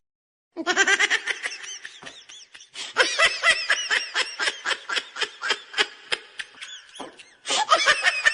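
Someone laughing hard in a long run of quick, rhythmic bursts, about four a second, with a short break about seven seconds in before the laughter starts again.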